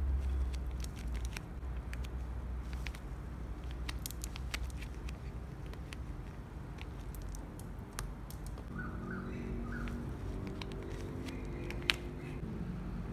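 Tape-covered paper crinkling and rustling as it is handled, with scattered sharp crackles and clicks throughout.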